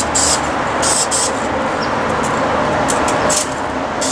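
Several short hissing bursts from a Krylon aerosol spray-paint can, sprayed in quick puffs. Under them runs a steady rumble of freeway traffic.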